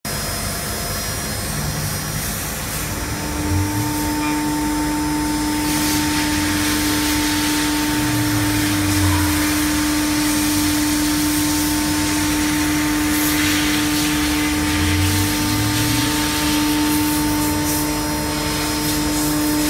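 CNC router spindle running with a steady high whine that comes in about three seconds in, its bit cutting a PVC sheet with a rushing hiss that grows from about six seconds in. Short low hums come and go now and then.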